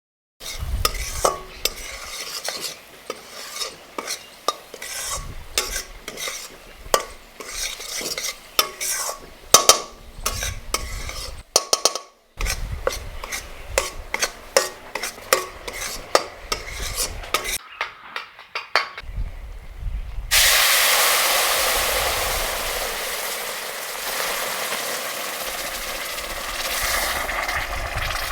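A utensil stirring and scraping food in a metal pot, with many quick clicks and knocks. About twenty seconds in, food starts sizzling suddenly and loudly in hot oil, then slowly dies down.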